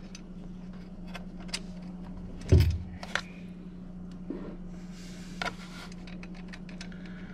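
Small metal clicks and light rattles of a washer and nut being handled and fitted onto a bolt through an intake bracket, with one louder thump about two and a half seconds in, over a steady low hum.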